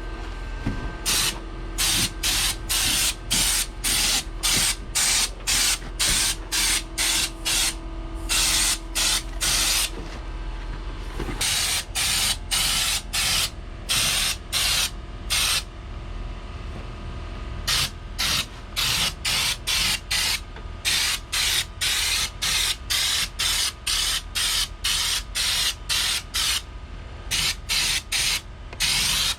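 Air-powered spray gun spraying a coating on a truck body in short trigger bursts, each a fraction of a second, about two a second, with occasional pauses between runs. A low steady hum lies underneath until about a third of the way in.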